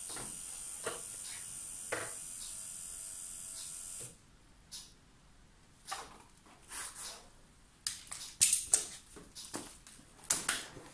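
Swapped-in Audi TDI diesel engine running steadily on its first run, then cutting out abruptly about four seconds in; the owner says it is misfiring, being half-rigged with no turbo plumbed in. After it stops, several knocks and clanks of handling parts.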